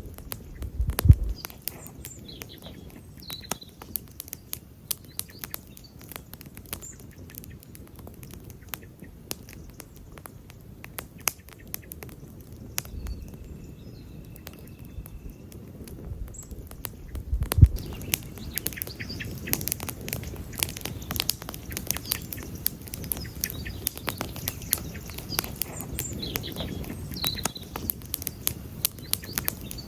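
Wood campfire crackling and popping over a low, steady rush of flame, with a louder pop about a second in and another a little past halfway; the crackling grows denser in the second half.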